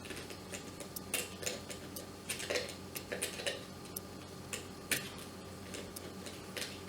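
Irregular light clicks and taps of a hand tool working the body nut loose on a travel kettle's base, a few clicks a second with pauses, some with a brief metallic ring.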